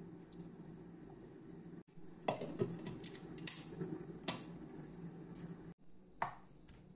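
Steel mixer-grinder jar handled: a cluster of sharp clicks and knocks about two to four seconds in as its lid is fitted and clamped shut, then a single knock near the end, over a steady low hum.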